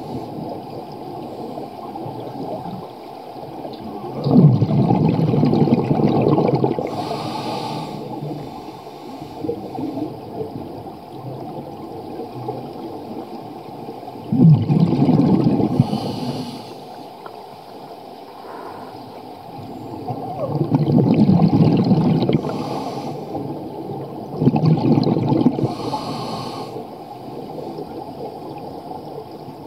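A scuba diver breathing through a regulator underwater. Each breath is a short hiss of inhalation, followed by a gush of exhaled bubbles lasting a couple of seconds, repeating about four times.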